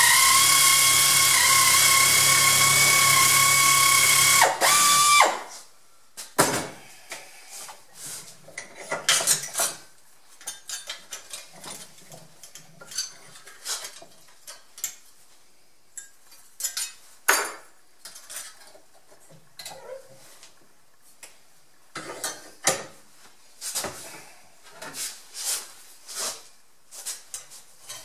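Pneumatic air shears running steadily as they cut sheet steel, stopping abruptly about five seconds in. After that come scattered light clinks and knocks of small steel pieces being handled.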